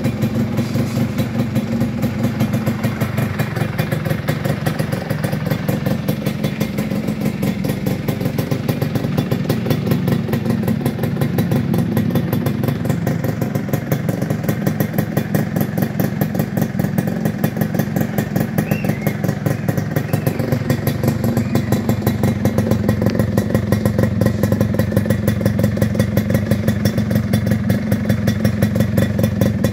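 Yamaha F1ZR's single-cylinder two-stroke engine running steadily through an aftermarket welded 'belahan' expansion-chamber exhaust, giving a crisp exhaust note.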